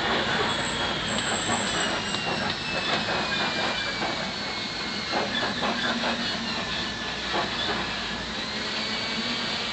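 Open-sided safari truck driving over a rough dirt track: steady engine and road noise with scattered knocks and rattles from the vehicle body. A faint thin whine slowly falls in pitch through most of it.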